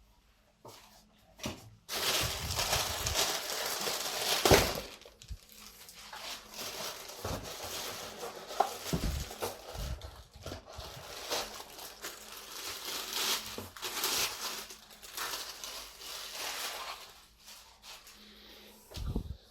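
Polyethylene packaging film crinkling and rustling in irregular bursts as it is pulled off and handled, with a few dull knocks, the loudest about four and a half seconds in and another near the end.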